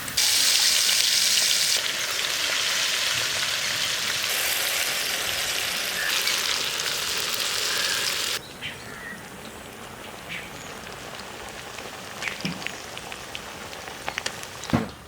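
Masala-coated chicken pieces deep-frying in hot oil: a loud, steady sizzle that cuts off abruptly about eight seconds in, leaving a quieter background with a few light clicks.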